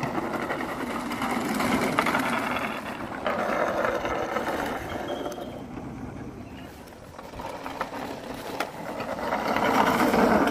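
Wooden go-karts' wooden wheels rolling and rattling over asphalt, a continuous clattering rumble that swells and fades and is loudest near the end.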